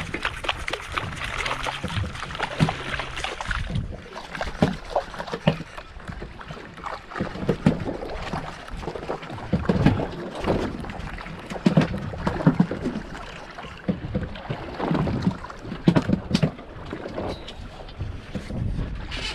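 Small waves slapping and lapping against the hull of a drifting boat, in irregular surges, with wind buffeting the microphone.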